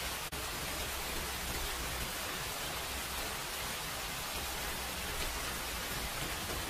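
Steady, even hiss across the whole range, with no distinct eating sounds standing out from it. It cuts out for an instant just after the start.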